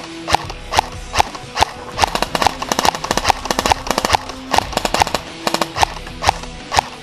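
Airsoft electric rifle (MK18 replica) firing repeated semi-automatic shots, each a sharp clack, about two or three a second with quicker strings of shots in the middle. Background music plays faintly underneath.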